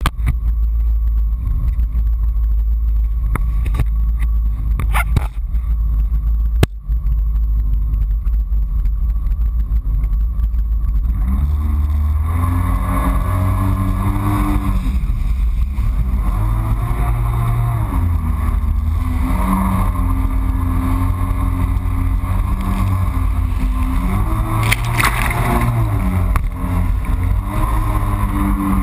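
Yamaha FX HO Cruiser jet ski's four-stroke engine. For about the first eleven seconds it is a low rumble with a few sharp knocks, then the engine note rises and falls again and again as the throttle is opened and eased.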